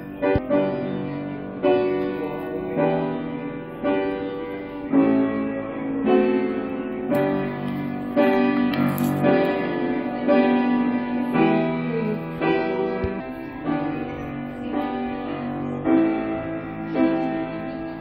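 Background piano music, with chords changing about once a second.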